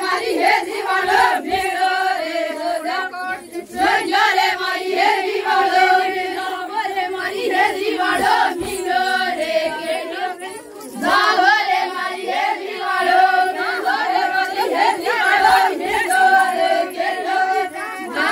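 A group of voices singing a tribal wedding song together in chorus, in long phrases with brief breaks about 4 and 11 seconds in.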